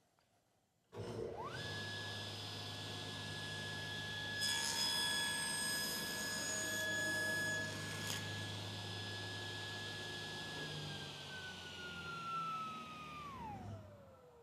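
Table saw switched on: the motor and blade spin up in under a second to a steady high whine over a low hum. From about four to eight seconds in, the blade cuts through a board pushed across it on the sliding table. Then the saw is switched off and the whine drops in pitch as the blade coasts down near the end.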